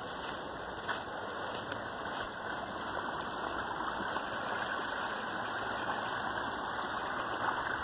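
Small woodland creek running over a little drop, a steady rushing that gets slightly louder in the second half.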